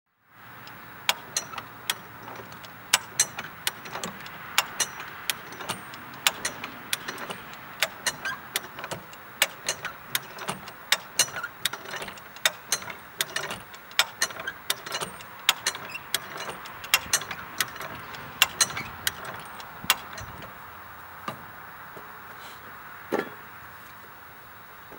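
Hand-pumped shed-mover lifting jack clicking as its handle is worked to raise a shed, about two to three sharp clicks a second; the clicks stop about 20 seconds in and a single thump follows near the end.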